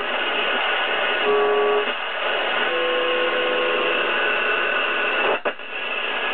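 Zenith Trans-Oceanic shortwave radio's speaker hissing with static as it is tuned across the band. Short steady whistle tones come through about a second in and again around three seconds in, and the sound cuts out briefly near the end.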